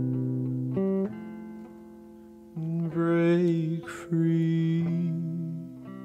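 A song: guitar chords ringing out and held, with a man singing briefly about midway through.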